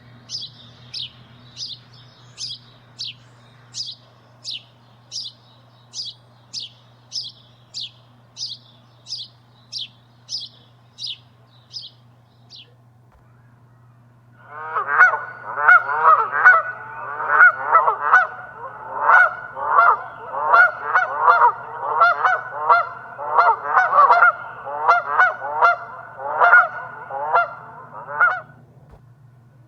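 Bird calls: a small bird repeating high, quickly falling notes about twice a second, then after a short pause a long stretch of dense, overlapping lower calls from a flock of geese.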